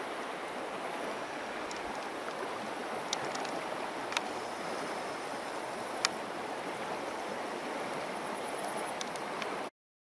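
Steady rushing of a taiga river flowing over a stony bed, with a few faint clicks. The sound cuts off suddenly near the end.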